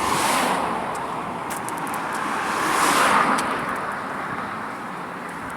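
Road traffic on a highway bridge: two vehicles pass, one just as it begins and a louder one about three seconds in, each swelling and fading.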